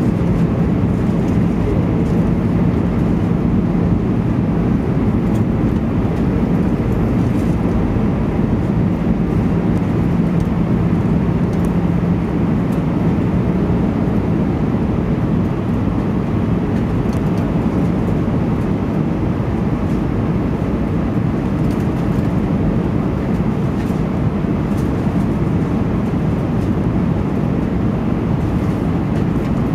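Steady in-cabin noise of an Airbus A320 descending on approach, heard from a window seat over the wing: engine drone and rushing airflow, with a low hum that fades about twelve seconds in.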